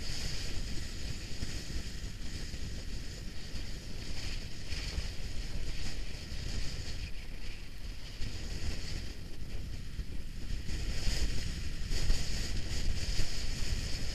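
Wind buffeting an action camera's microphone on a mountain-bike descent, a steady low rumble, with the hiss and irregular rattle of the tyres and bike running over a stony track.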